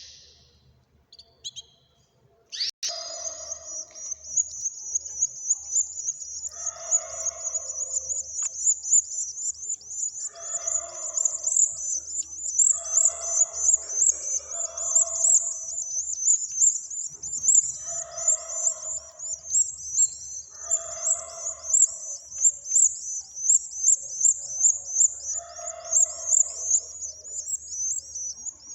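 Twelve-day-old cage-bird nestlings chirping: a continuous rapid, high-pitched twittering, with shorter, lower calls breaking in every two to four seconds. It starts about three seconds in.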